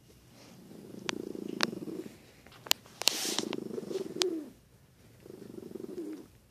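Dog licking another dog's face: sharp wet licking smacks, with a low, rough rumble from the dogs in three stretches of a second or so.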